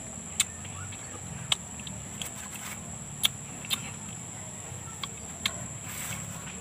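Wet mouth smacks and sucking sounds of someone eating ripe mango flesh off the skin, short sharp clicks coming about once a second, over a steady high-pitched whine.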